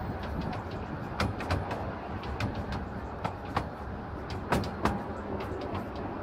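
Miniature railway carriage rolling along the track, with a steady low rumble and irregular sharp clicks and clacks of the wheels over rail joints.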